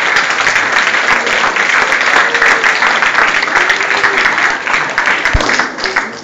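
Audience applauding: dense, steady clapping from many hands, dying away near the end.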